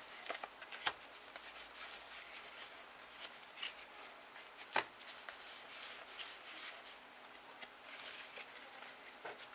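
Faint crinkling and tearing of a foil booster-pack wrapper in gloved hands, then trading cards being handled. Sharp snaps about a second in and again near five seconds in.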